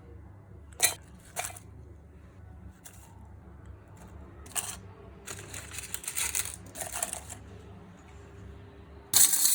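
Whole dried spices (cinnamon sticks, black pepper, cloves, cardamom, dry ginger) are dropped and poured into a mixer-grinder jar, with scattered clinks and a longer rattle. Near the end the mixer grinder starts suddenly and loudly to grind them into kadha powder.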